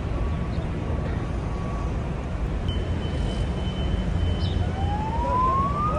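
Steady low vehicle rumble. About five seconds in, an emergency-vehicle siren starts up, rising in pitch.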